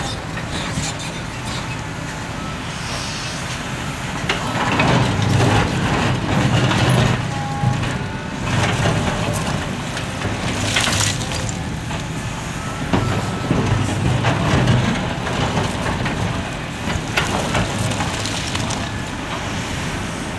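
Liebherr R974B hydraulic excavator's diesel engine working under load as the bucket digs into broken rock, the engine swelling louder twice, with rocks scraping and clattering against the bucket now and then.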